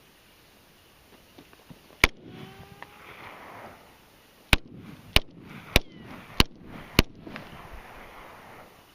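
Glock 17 9mm pistol firing six shots: a single shot, then after a pause a quick string of five about 0.6 s apart, each shot echoing off the open ground.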